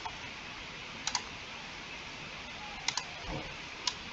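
A few sharp computer mouse clicks, two of them as quick press-and-release pairs, over a steady low hiss.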